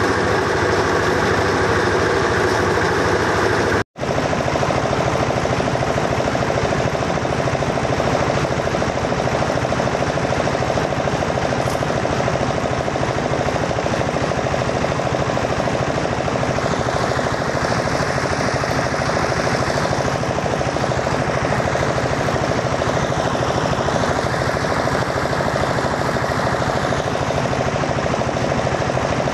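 Small stationary engine running steadily at a constant speed, driving a belt-driven winnowing fan, with a steady rushing hiss over the engine note. The sound cuts out for a split second about four seconds in.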